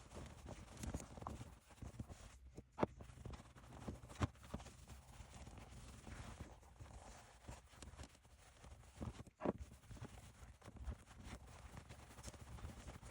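Scattered light knocks and clicks with faint handling noise, from hand work on a leather catcher's mitt at a workbench; three sharper knocks stand out, about 3, 4 and 9½ seconds in.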